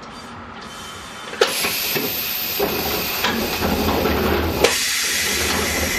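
Compressed air hissing from a Fukui Railway 200 series tram standing stopped: a click about a second and a half in, then a steady hiss with a thin high whine that cuts off suddenly about three seconds later.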